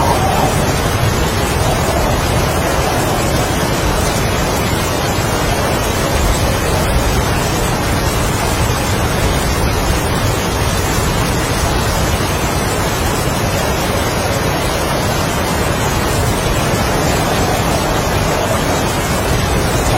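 Heavy rain and strong wind as a steady, even wash of noise, with a mid-pitched swell of wind near the start and again near the end.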